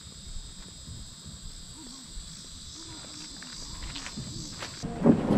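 A steady, high-pitched chorus of insects. About five seconds in it cuts off abruptly and loud wind rushing on the microphone takes over.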